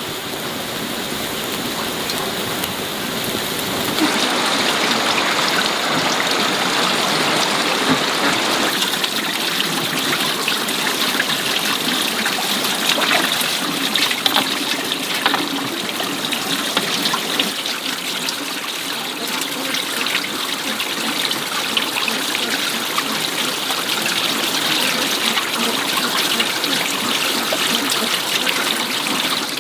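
Running water: a steady trickling and splashing flow that gets louder about four seconds in, with scattered small clicks.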